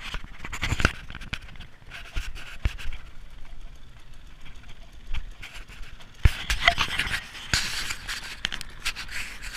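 Irregular breathy noise close to the microphone, like heavy panting, in several swells, with short knocks from the camera being handled.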